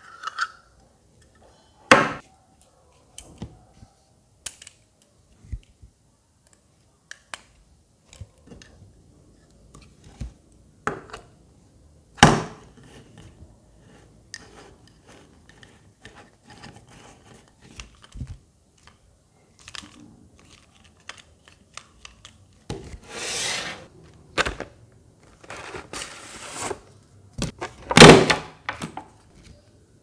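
Handling sounds of a small plastic handheld fan and its packaging: scattered sharp clicks and knocks, with short bursts of rustling in the last third and the loudest click near the end.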